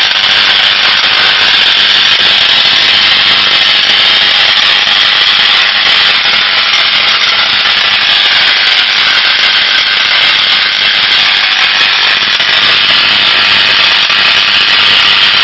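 Tesla coil firing continuously, its purple spark streamers from the spherical top load making a loud, steady buzz with no let-up.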